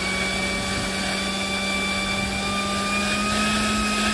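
70 mm electric ducted fan spinning at high speed with a steady whine whose pitch creeps slowly upward as it is sped up. It is producing a lot of thrust, heard from inside the fuselage's air intake.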